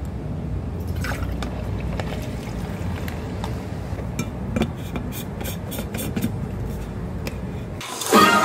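A plastic tumbler and its lid being handled on a counter: scattered light clicks and knocks over a steady low hum. Near the end, background music with ringing notes comes in.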